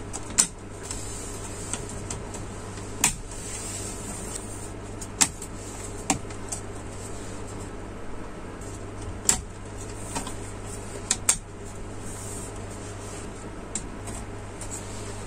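White ABS plastic pot-rack shelf rings and legs clicking and knocking as the rings are fitted and snapped onto the legs: a series of irregular sharp clicks.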